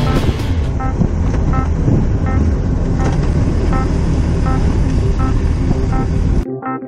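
Motorcycle riding noise from a helmet camera on a Honda CBR600RR's inline-four: engine and wind rush at a fairly even level. About six seconds in it cuts off abruptly and piano music takes over.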